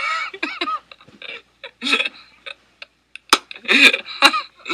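Short bursts of a person's laughter, in several separate spurts with gaps between, the loudest near the end.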